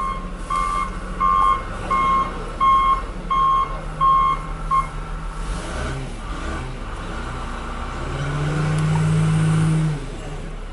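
Backup alarm on heavy snow-removal equipment beeping about every 0.7 seconds, stopping about five seconds in, over a running engine. Near the end the engine rises to a louder steady drone for about two seconds, then drops back.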